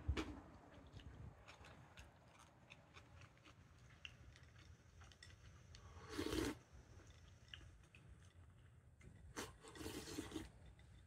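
A person eating chilled ochazuke (rice in cold tea) from a glass bowl held to the mouth: short slurps at the start, about six seconds in and about ten seconds in, with light clicks of chopsticks against the glass and chewing in between.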